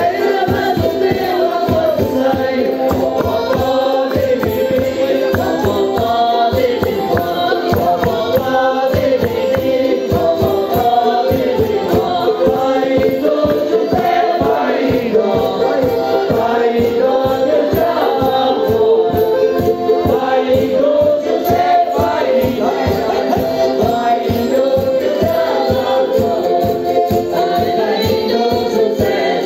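Madeiran folk music with group singing over a fast, steady beat.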